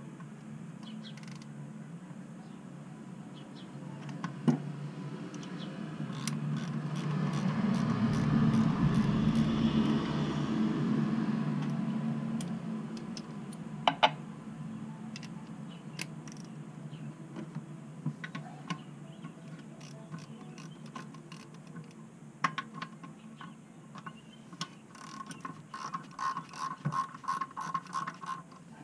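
Hand ratchet clicking and metal tools knocking as exhaust manifold bolts are worked loose, with the ratchet ticking rapidly near the end. A low steady hum runs underneath, and a rush of noise builds and fades over several seconds in the middle.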